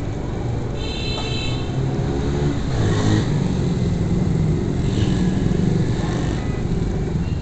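Motorcycle engine running under way through street traffic, its pitch rising as it picks up speed around two seconds in. A brief high beep sounds about a second in.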